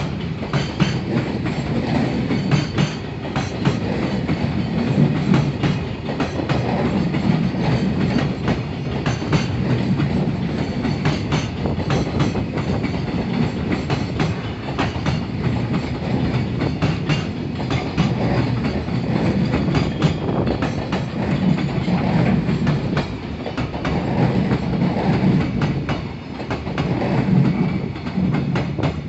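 A long freight train's wagons rolling past, wheels clacking rhythmically over the rail joints with a steady rumble.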